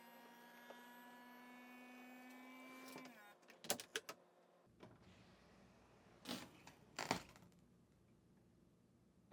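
Power window motor for the rear quarter glass of a 2014 Camaro convertible running for about three seconds, its hum rising slightly in pitch before it stops. A few sharp clicks and knocks follow.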